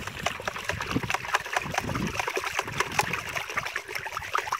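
A stick stirring a watery slurry of compost, cow dung and seaweed liquid round a plastic bucket: the liquid swirls in a vortex with many small splashes. This is the vigorous vortex stirring that dynamizes a biodynamic pruning paste.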